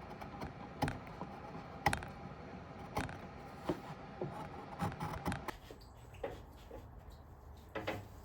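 Scattered light knocks and clicks of wooden pieces and hand tools being handled, a few strong ones about a second apart, over a steady low hum; the knocks thin out after about five and a half seconds.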